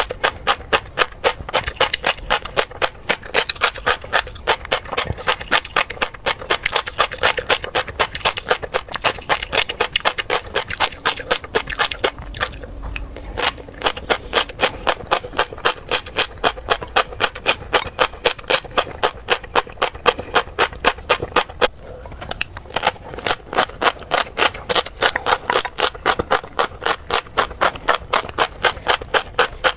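Close-miked chewing of crunchy tobiko (flying fish roe): a fast run of crisp crunching and popping clicks, about three a second, pausing briefly twice.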